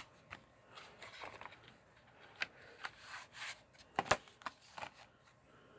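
Plastic Blu-ray case and its paper insert being handled: scattered light clicks and soft rustling, with the sharpest click about four seconds in.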